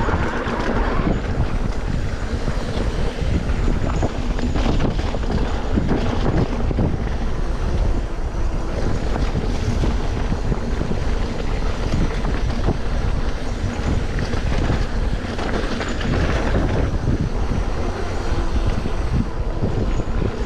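Loud, steady rush of wind buffeting the microphone, with a heavy low rumble.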